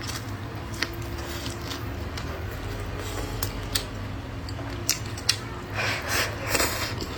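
Eating sounds close to the microphone: scattered sharp clicks, with a cluster of louder wet chewing noises about six seconds in, over a steady low hum.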